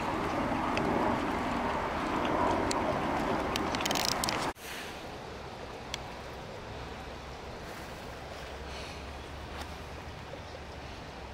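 Steady outdoor background noise, an even rushing hiss over a low hum. It is louder for the first four and a half seconds, then drops suddenly to a quieter, even level.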